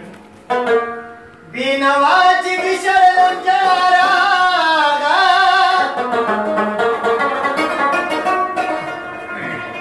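A man singing a Pashto ghazal in long held lines, accompanied by a plucked string instrument. The voice comes in about one and a half seconds in.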